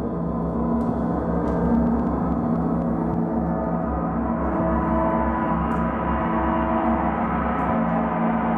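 Large planetary gongs played with mallets, ringing in a sustained wash of many overlapping tones with a deep pulsing throb underneath.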